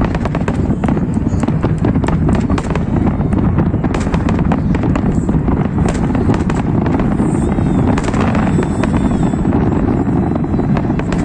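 Fireworks display: a dense run of crackling and popping shells over a steady low rumble.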